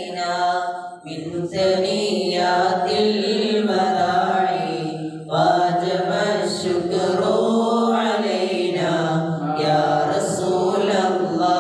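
Men's voices chanting a mawlid recitation in Arabic, unaccompanied and amplified through handheld microphones, in long, melodic held phrases with short breaks between lines.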